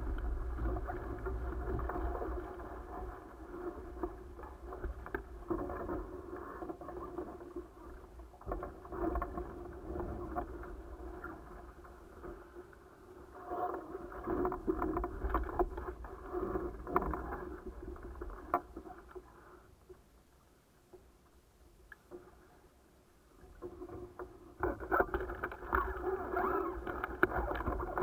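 Water rushing and splashing past the hulls of a small sailing catamaran under way. The sound is muffled, with nothing high-pitched. It dies away for a few seconds about two-thirds of the way through, then picks up again, louder, near the end.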